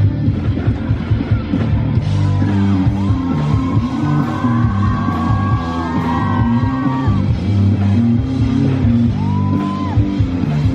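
A rock band playing live through a stage PA: electric guitars, bass and drums. High notes glide up and down in pitch over the steady low end for several seconds in the middle, and again briefly near the end.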